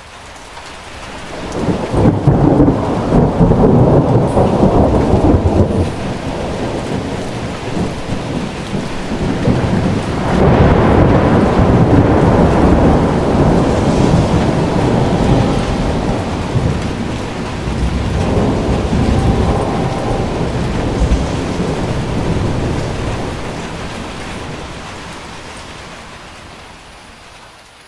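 Heavy tropical rain pouring steadily, with three long rolls of thunder: one about two seconds in, one about ten seconds in and one near twenty seconds. Each rumble swells up and dies away over several seconds.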